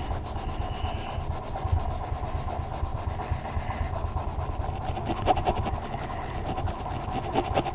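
Coloured pencil rubbing back and forth on a colouring-book page, over a steady low rumble.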